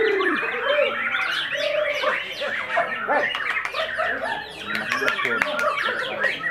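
White-rumped shama (murai batu) singing a fast, varied song of whistles, chirps and chattering mimicry, with other birds singing over it in a dense overlapping chorus.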